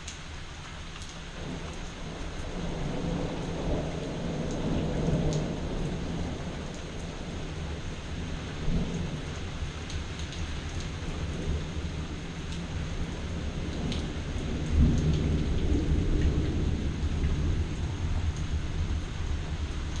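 Thunder rolling over steady rain. One long rumble swells a few seconds in, and a louder one starts suddenly about fifteen seconds in. Raindrops tick throughout.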